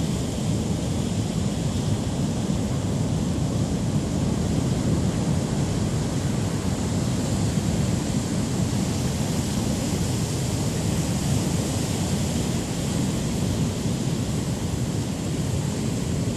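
Heavy Pacific storm surf breaking among rocks and washing up a beach: a steady, low rumbling wash of noise with no single wave crash standing out.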